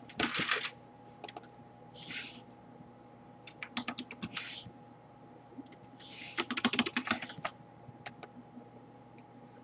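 Computer keyboard typing: scattered key clicks in a few quick clusters, with short soft hissy noises in between.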